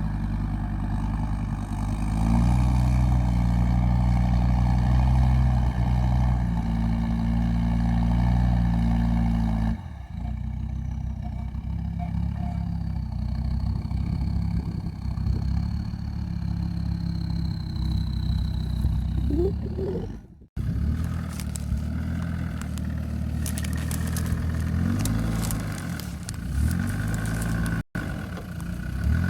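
Land Rover Discovery 2 Td5's five-cylinder turbodiesel engine running under load while driving off-road, its note changing in steps as the revs rise and fall. The sound cuts off abruptly three times.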